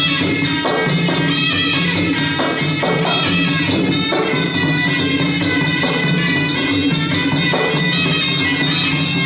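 Traditional ring music played during a Kun Khmer kickboxing bout: a sustained melody line over repeated drum strokes.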